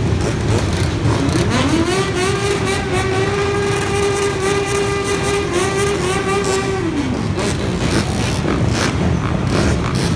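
Several dirt bike and ATV engines running together in the street. About a second in, one rises to a high, steady tone during a burnout, holds it for about five seconds, and drops away near the seven-second mark.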